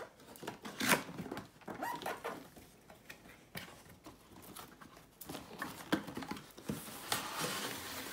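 Cardboard packaging being opened by hand: irregular taps, scrapes and rustles of cardboard, with a longer scraping rustle near the end.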